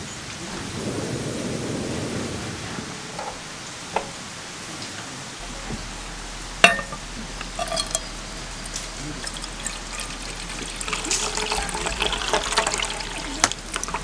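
Folding portable butane stove burner running with a low rush of flame that fades after about three seconds. A pan is set down on the metal pot supports with a sharp knock a little past the middle. Near the end, water pours and splashes into the pan.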